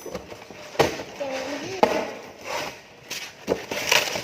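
A folding table being unpacked and handled, giving about four sharp knocks and clatter of its panels.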